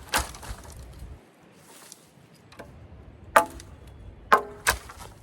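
Seven Pines Forge bushcraft hatchet chopping into wood: four sharp strikes, one near the start and three near the end, the last two in quick succession, each with a brief ringing after the hit.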